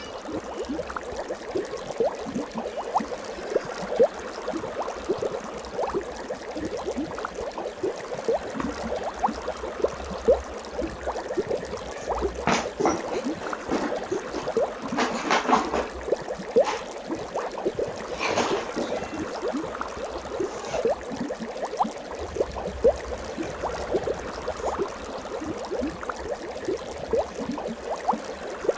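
Water bubbling and gurgling: a dense, continuous stream of small bubble plinks, each rising in pitch. A few brief louder splashy bursts come around the middle.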